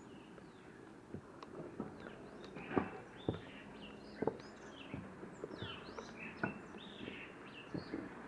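Small birds chirping in quick, overlapping calls, over a low steady background hum. About eight sharp, irregularly spaced knocks or taps stand out, the loudest a little under three seconds in.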